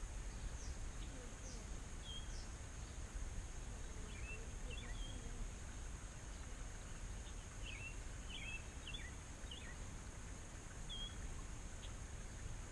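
Outdoor ambience at the water's edge: small birds give short chirps in scattered clusters over a steady high-pitched drone and a low rumble of wind on the microphone.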